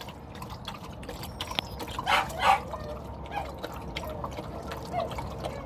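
Dogs lapping water from a tub and a bucket: quick, irregular wet laps and splashes.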